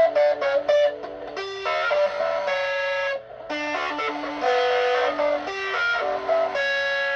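Electric guitar played loud through a small practice amp: a run of picked notes and chords, with a short break about three seconds in, over a steady low hum. The amp was damaged when its owner took it apart to fix it, and he says it still plays, "not well".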